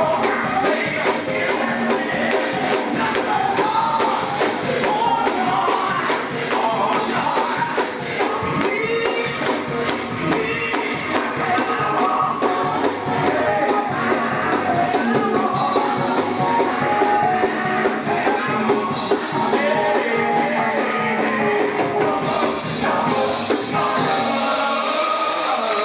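Up-tempo gospel singing by a choir with a male lead on microphone, backed by steady hand clapping and a shaken tambourine.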